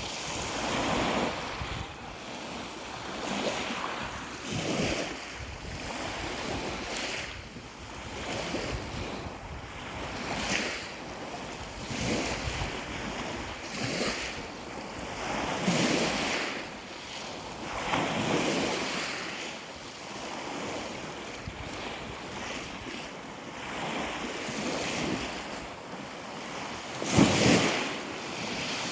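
Sea waves washing in on the shore, one swell of hissing surf about every two seconds, with one louder wave near the end. Wind rumbles on the microphone.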